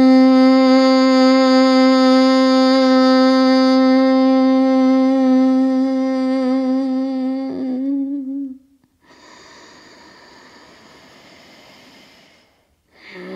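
A woman's closed-mouth hum of bhramari (bumblebee) breath, held at one steady pitch for about eight seconds, wavering briefly before it stops. It is followed by a quiet inhale, and a new hum starts right at the end.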